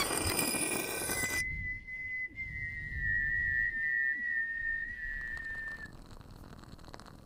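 A single long, thin whistled note held for about four and a half seconds, sinking slightly in pitch before it cuts off. Before it, a hissing, rattling noise stops about a second and a half in.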